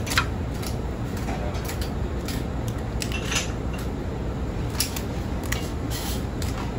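Kitchen shears snipping through the thick shells of cooked Alaskan king crab legs: a series of short, sharp crunching cuts at irregular intervals, over a steady low background hum.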